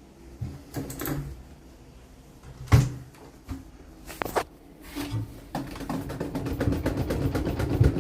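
Old LG washing machine: a few knocks and clunks, the loudest about three seconds in, then from about halfway through a rapid, even clicking over a low hum that grows louder.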